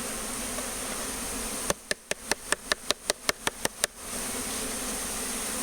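A mass of honeybees buzzing steadily. About two seconds in, the buzz is broken by a quick run of about a dozen sharp clicks or taps, roughly five a second, lasting about two seconds.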